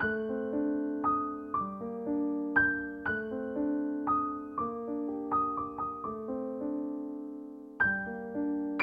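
Background music: soft piano playing a slow melody of single notes over ringing chords, each note struck and fading away. Near the end a long chord dies down before the next notes come in.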